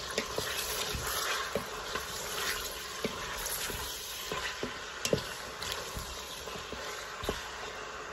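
Mutton, onion and tomato sizzling in hot oil in a stainless steel Instant Pot insert as a wooden spoon stirs them, with irregular knocks of the spoon against the pot, the sharpest about five seconds in.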